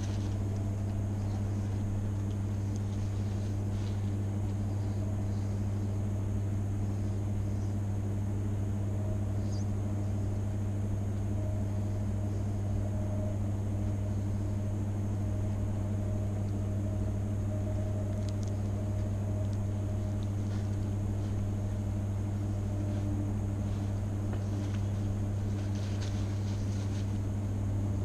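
Steady low hum inside a vehicle cabin, unchanging throughout, with a few faint ticks.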